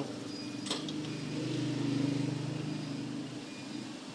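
A low motor drone that swells for about two seconds and then fades, with a single click about a second in.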